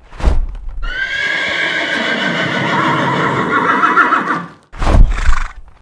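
A long, wavering, high animal-like cry lasting about three and a half seconds. It is preceded by a thump and followed near the end by two heavy thumps.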